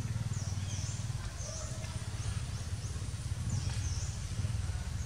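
Outdoor background: a steady low rumble with short, high-pitched chirps repeating about twice a second over it.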